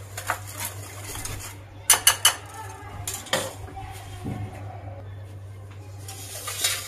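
Metal wire whisk clinking against a glass mixing bowl of dry sugar and cornstarch, with a quick run of sharp clinks about two seconds in and single knocks before and after. A steady low hum runs underneath.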